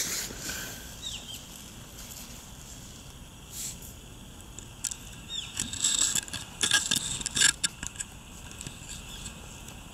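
Outdoor ambience: a steady hiss with scattered rustling and crackling clicks, thickening into a cluster of louder clicks from about five and a half to seven and a half seconds in. Two short falling chirps, one about a second in and one just after five seconds.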